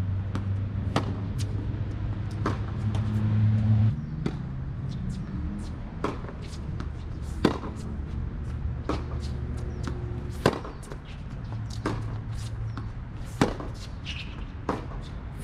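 Tennis rally on a hard court: rackets striking the ball and the ball bouncing, sharp pops every one to three seconds. A low steady hum runs underneath, louder in the first four seconds.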